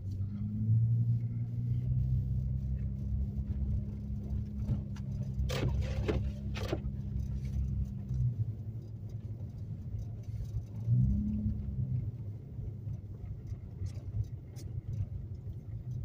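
A Toyota Camry heard from inside the cabin while driving on a snowy road: a steady low engine drone and road rumble. The engine pitch swells and falls briefly about two-thirds in, and there are a few short clicks near the middle.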